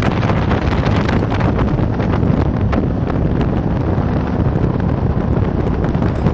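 Jet boat running at speed on a river, its steady engine and water noise mixed with heavy wind buffeting the microphone.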